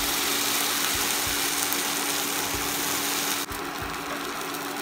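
Bread pizza slice frying topping-side down in butter in a nonstick pan, a steady sizzle that dips briefly about three and a half seconds in, over the steady hum of an induction cooktop.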